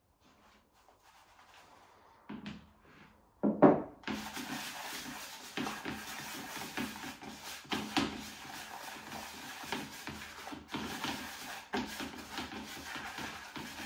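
Water poured from a glass onto dry Van den Eynde G5 groundbait in a plastic box, a sharp knock about three and a half seconds in, then hands mixing and rubbing the damp, crumbly groundbait in the box: a continuous rustle with many small crackles as the mix is wetted.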